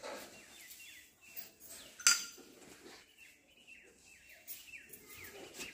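Small birds chirping faintly in short, quick downward notes, with one sharp click about two seconds in.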